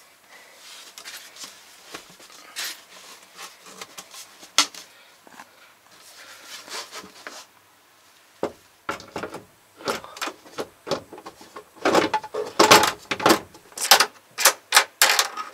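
A plastic wall hatch with a small metal catch being handled and tried: scattered clicks, knocks and rattles, sparse at first and coming thick and loud over the last few seconds.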